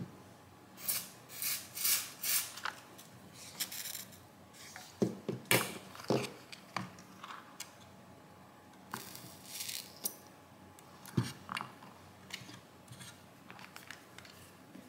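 Copper desoldering braid and a soldering iron tip being worked against the joints of a circuit board: a scattered string of short scrapes, rustles and clicks, some rapid and rasping.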